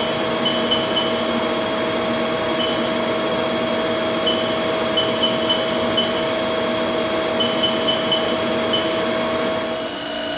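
Short high beeps from a Haas CNC mill control keypad as keys are pressed, coming singly and in quick runs of three to five, over a steady humming machine drone with a fixed tone in it.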